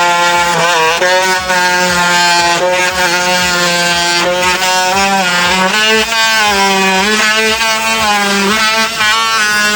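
DeWalt DCS354 20V cordless oscillating multitool cutting wood, a steady loud buzz whose pitch dips and recovers several times as the blade bites into the cut.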